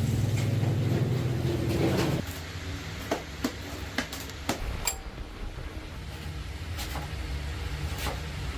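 A machine's motor running with a steady low hum. A louder, dense rush of sound fills the first two seconds and then cuts off, followed by a few sharp knocks spread over the rest.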